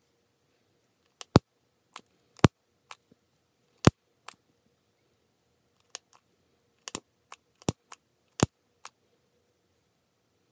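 A string of sharp, irregular clicks, some much louder than others, from small parts and tools being handled.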